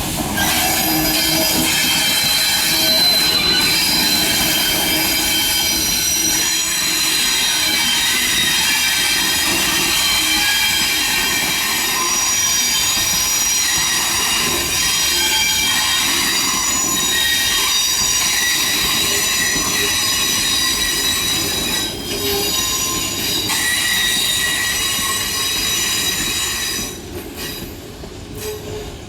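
Steam-hauled passenger train rolling past, its wheels squealing on the rails with a steady chorus of high-pitched tones. The sound falls away noticeably near the end.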